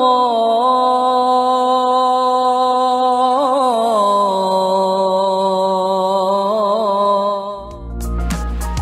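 Islamic call to prayer (adhan): a man's voice sings a long, held melismatic phrase with ornamented turns and a step down in pitch about four seconds in. It ends about seven and a half seconds in, where different music with a deep bass cuts in.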